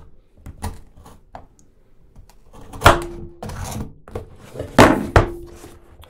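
Kitchen knife cutting the seal stickers on a cardboard phone box, with scraping and several sharp knocks of the box and knife against a wooden desk, the loudest about three seconds and five seconds in, some with a brief ringing after them.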